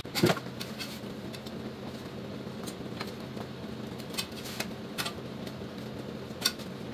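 Steady low kitchen hum with a handful of light, sharp clicks of a metal utensil and the roti against the gas stove's grate as a roti is laid over the lit burner.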